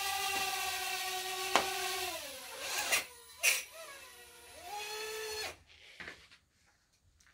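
Small quadcopter drone's motors and propellers whining at a steady high pitch. A sharp knock comes about a second and a half in, and then the whine falls as the motors spin down. After a couple more knocks the whine rises briefly again and cuts off suddenly a little past halfway.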